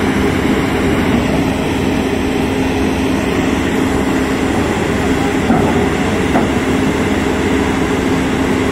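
An Italian-made IMT hydraulic rotary piling rig's diesel engine and hydraulics running, a steady low machine hum with a held tone. Two light knocks sound about halfway through.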